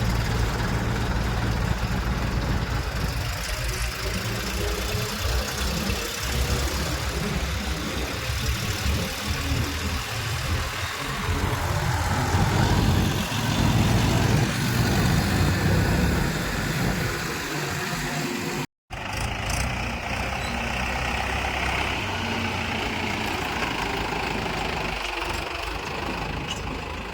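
Diesel engines of heavy machinery running under changing load, louder for a few seconds around the middle, with a sudden short break about two-thirds of the way in.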